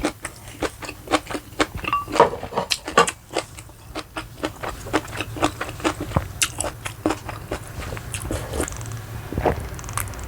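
A person chewing and biting food, with a dense run of short crunchy, wet mouth clicks several times a second.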